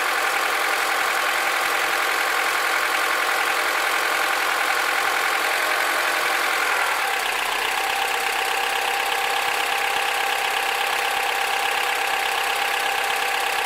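Honda K20Z2 2.0-litre four-cylinder engine idling steadily, carrying the extraneous noise whose source is being sought. About halfway through the tone shifts slightly lower and a little quieter.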